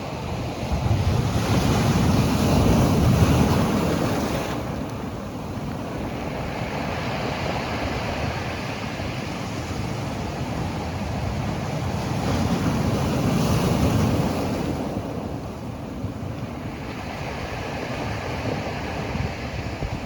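Steady rushing outdoor noise that swells louder twice, about a second in and again around twelve seconds in.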